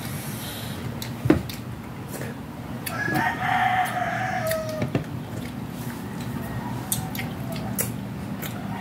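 A rooster crowing once, a pitched call of about two seconds that drops in pitch at the end. A sharp knock comes about a second in.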